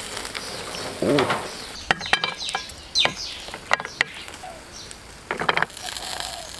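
Grilled conch shells clinking and clattering as they are lifted off a charcoal grill with tongs and set on a plate, a few sharp clicks. A faint sizzle from the grill opens the sound.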